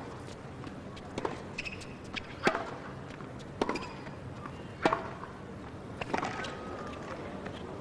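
Tennis ball struck back and forth by rackets in a rally: five sharp hits, about a second and a quarter apart.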